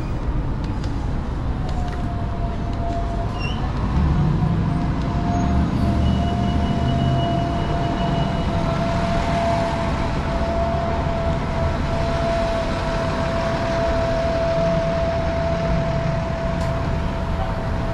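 City street traffic: a low rumble of passing vehicles, louder from about four seconds in, with a steady whine held through most of it.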